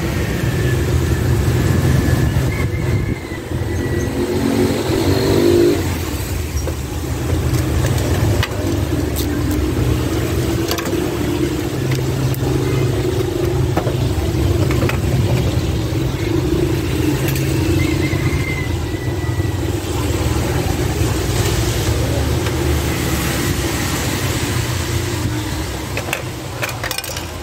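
Steady rumble of street traffic, with occasional clicks and knocks of a plastic toy and its cardboard box being handled.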